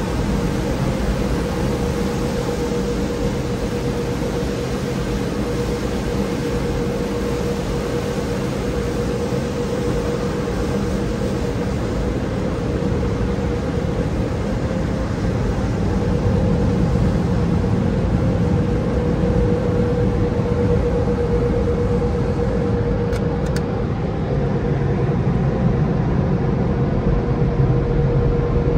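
Car wash dryer blowers running, heard from inside the car's cabin: a steady rush of air with a steady hum, growing louder about halfway through.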